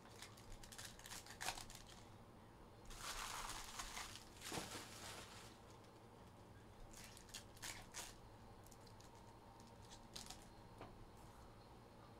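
Faint crinkling and tearing of trading-card pack wrappers being ripped open, with a longer tear about three seconds in and another shortly after, among light clicks and taps of cards and packs being handled.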